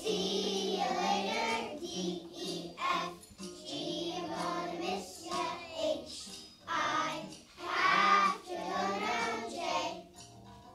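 A group of young children singing a song together in short phrases with brief pauses between them.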